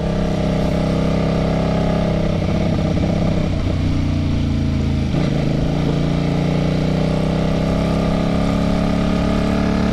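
Kasinski Mirage 250's V-twin engine running as the motorcycle rides along. The engine note sags from about three seconds in to a low point near five seconds, then picks up again and holds steady.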